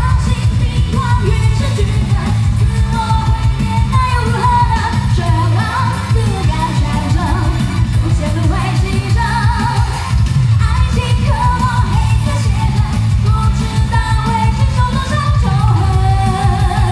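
A woman singing a pop song live into a microphone over loud pop accompaniment with a heavy, steady bass line.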